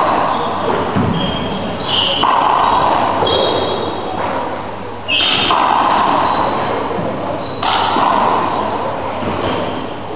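Handball doubles rally in an enclosed four-wall court: the hard rubber ball slapped by hand and smacking off the walls and wooden floor, each sharp hit ringing on in the court's echo, with short squeaks of trainers on the floor between hits.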